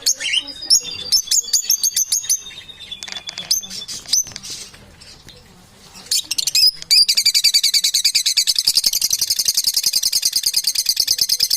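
Parrot chirping and whistling in short high glides, then, from about seven seconds in, a fast, even, rattling trill.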